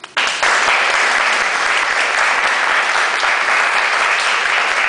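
Audience applauding at the end of a talk, breaking out suddenly just after the last words and continuing steadily.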